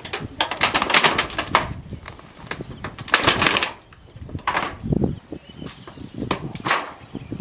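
Short bursts of rustling and clattering, loudest about a second in and again around three seconds in, over a steady high insect drone.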